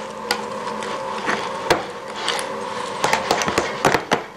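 Spoon stirring soft gluten-free bread dough in a glass bowl: a few scattered clicks at first, then a quick run of clicks and knocks against the glass from about three seconds in.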